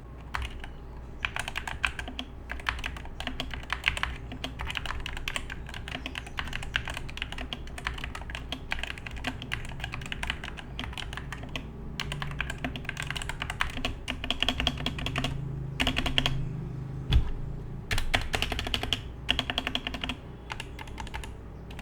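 Skyloong GK61 60% mechanical keyboard with Gateron Red optical switches being typed on continuously: a dense, irregular clatter of keystrokes with a few brief pauses and one sharper knock about 17 seconds in.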